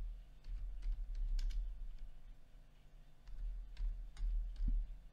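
Computer keyboard keystrokes, slow and uneven, as a word is typed, over a low hum.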